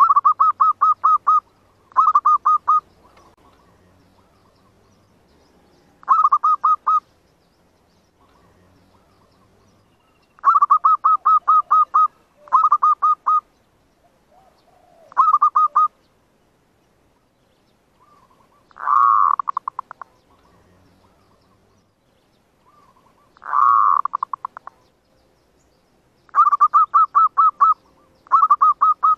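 Zebra dove (merbuk) cooing: about ten bursts of rapid staccato coos, each a second or so long. Two longer swelling calls come in the middle. This is the call used as a lure to draw in and trap other zebra doves.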